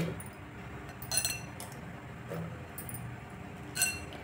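Three short ringing clinks of a glass bowl and a steel pressure cooker as bottle-gourd pieces are tipped into the cooker: one at the start, one about a second in, and one near the end.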